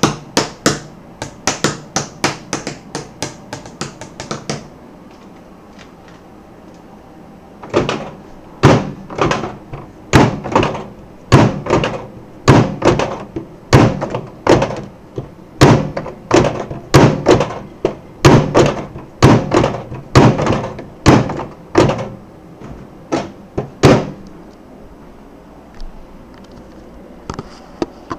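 Repeated sharp knocks, two or three a second for the first four seconds. After a pause of about three seconds comes a louder run of knocks, roughly one every half second, which stops a few seconds before the end.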